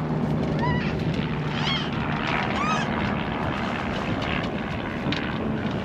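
Steady rush of wind and water aboard a sailboat under sail, with wind buffeting the microphone and a few faint short chirps.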